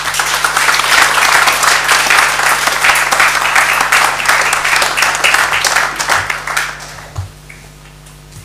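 Small seated audience applauding, the clapping dying away about seven seconds in.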